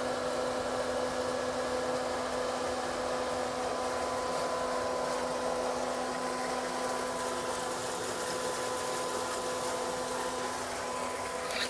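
Solar pump drive (variable-frequency inverter) running under load: a steady whirring hum with a few held tones that do not change.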